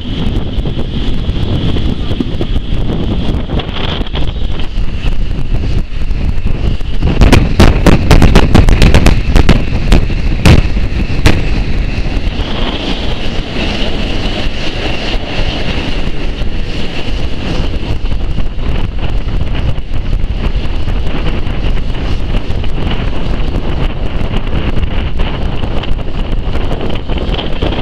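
Historic train running along the track, heard from an open carriage window with heavy wind buffeting on the microphone. A few seconds of loud, sharp clattering come about a third of the way in.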